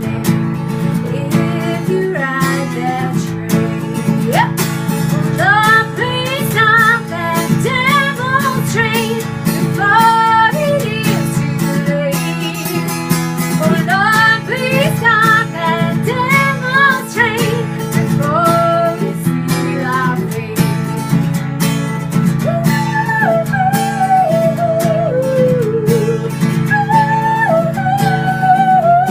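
Acoustic guitar strumming steadily under a sung melody.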